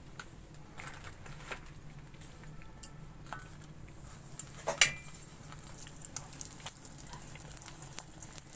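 Flatbread frying in a thin layer of oil on a flat pan: scattered light taps and clicks as it is laid down and pressed, the sharpest just under five seconds in, and a faint crackling sizzle that builds through the second half.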